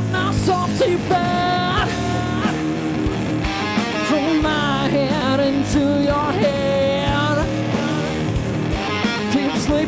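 Live heavy-funk rock band playing loudly: electric guitars, bass and drums, with a singer holding long, wavering notes over the band.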